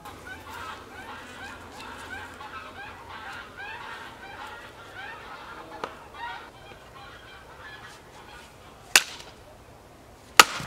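Axe splitting firewood on a wooden chopping stump: two sharp chops about a second and a half apart near the end. Before the chops, birds call over and over in the background.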